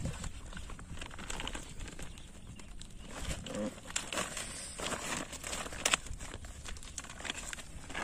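Woven plastic sack rustling and crinkling, with scattered sharp taps and clicks, as a fish is worked off the steel tines of a multi-pronged fish spear into the sack; the sharpest tap comes about six seconds in.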